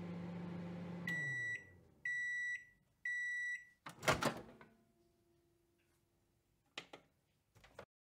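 Microwave oven running with a low hum that winds down about a second in, then three beeps marking the end of the cycle, followed by a loud clunk of the door opening and two short clicks near the end.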